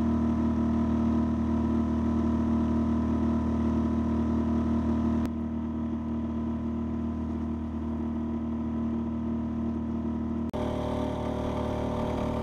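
Small outboard motor pushing a loaded canoe at steady cruising speed: a steady engine drone. Its tone shifts abruptly about halfway through and again near the end.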